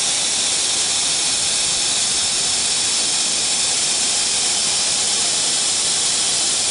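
Steady hiss with no change in level while the ATC CNC router's spindle carriage travels along the X axis to its home position. No separate motor whine or clicks stand out.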